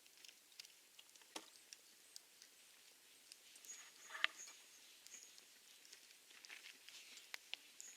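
Wood campfire crackling quietly, with scattered small pops and one louder crack about four seconds in.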